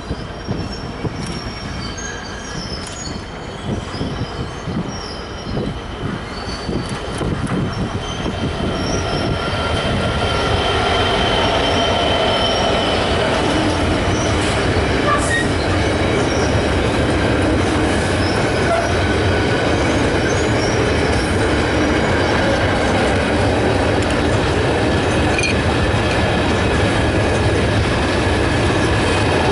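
Freight train passing: a diesel locomotive draws near and goes by about ten seconds in, and then a long rake of box wagons rolls past steadily, wheels squealing on the rails with some clatter.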